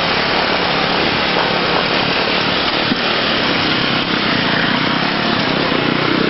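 Enduro motorcycle engines running and revving together in a dense, steady mix of engine noise.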